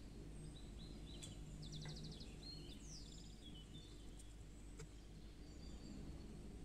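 Faint bird chirps and a short trill, over a low steady hum.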